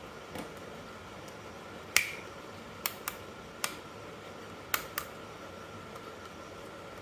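Seven sharp clicks and taps, the loudest about two seconds in, with pairs close together near three and five seconds, over a faint steady hiss with a thin high hum.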